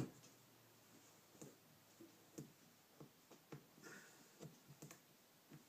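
Faint, irregular clicks and light taps of small metal hand tools being handled, Allen keys picked over from a key kit, with one sharper click at the very start.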